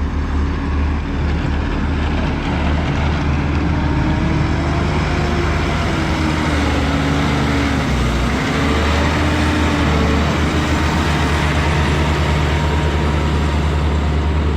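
Heavy machinery engine running steadily under load, a deep hum with a slightly wavering whine.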